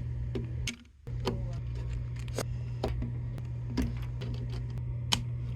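Plastic Lego bricks clicking as they are handled and pressed together: irregular sharp clicks, several a second at times, over a steady low hum that drops out briefly about a second in.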